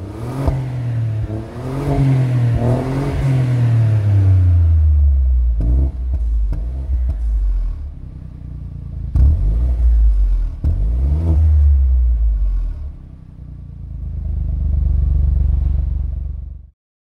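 BMW F30 318i's turbocharged engine revved through a stainless-steel cat-back sports exhaust, heard at the tailpipes. It rises and falls in pitch over several revs, with a few sharp clicks between them, then runs steadily for a few seconds before cutting off suddenly near the end.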